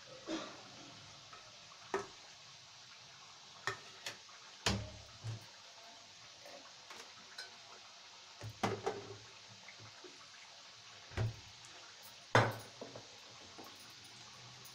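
Kachoris deep-frying in hot oil in a kadai: a faint steady sizzle, broken by about nine sharp clicks and knocks at uneven intervals, the loudest near the end.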